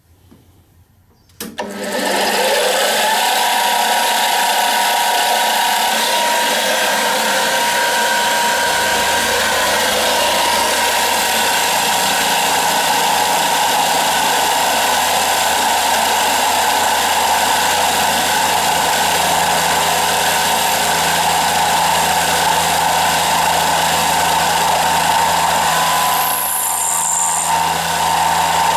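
Milling machine driving an end mill through brass, a quarter inch deep: a loud steady cutting whine that starts suddenly about a second and a half in and eases briefly near the end.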